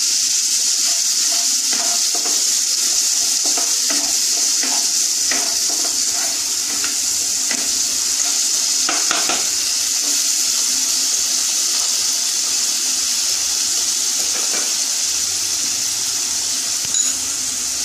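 Tomato paste and spice masala frying in mustard oil in a kadai: a steady sizzling hiss, with a few faint scrapes and taps of a wooden spatula stirring it.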